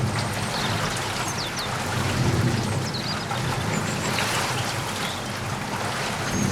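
Steady rain falling, a constant hiss with a low rumble underneath. Small birds give brief, high chirps in the background several times.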